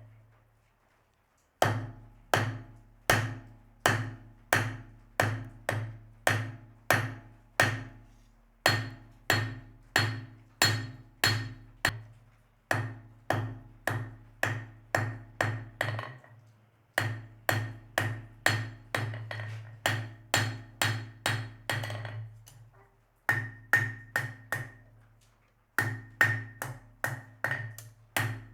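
Blacksmith's hammer striking steel on an anvil in steady runs of blows, about one and a half to two a second, with short pauses between runs. Each blow rings with a clear metallic tone, and the blows come faster near the end.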